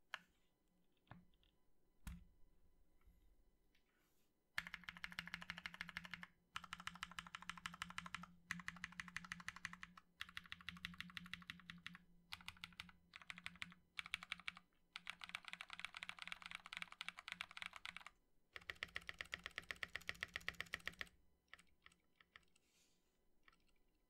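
Mechanical keyboard with lubed and filmed Feker Holy Panda tactile switches, PBT keycaps, an aluminium plate and a plastic case being typed on. A few single keystrokes come first, then fast typing in several runs of a few seconds each with short pauses between, ending with a few scattered keystrokes.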